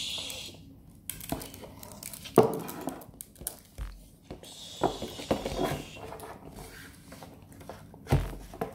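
Handling noises from a plastic plate being picked up and held: scattered knocks and scrapes, the sharpest about two and a half seconds in, with a dull thump near the end.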